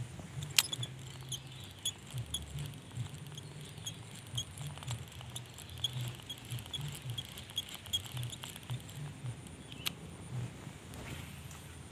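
Baitcasting reel being cranked to retrieve a lure: a sharp click about half a second in, then light irregular ticking, two or three a second, until about nine seconds in, and another sharp click near ten seconds.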